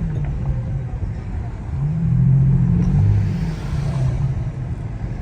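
Infiniti G35's 3.5-litre V6 with its exhaust resonator deleted, droning low while driving. It swells louder for about a second and a half, starting around two seconds in, then settles back.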